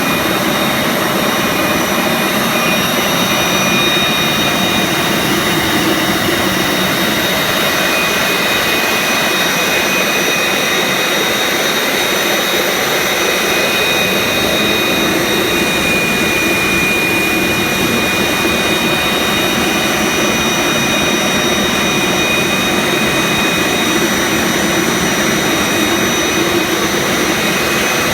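Forced-air forge burner running steadily: an even, loud roar with thin steady whining tones over it.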